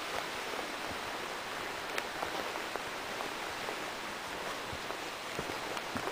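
A small mountain stream rushing steadily down the slope, with soft, scattered footsteps on a dirt trail.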